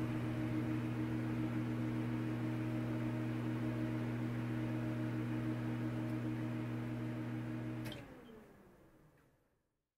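Steady motor hum that is switched off with a click about eight seconds in, then winds down, falling in pitch as it fades out.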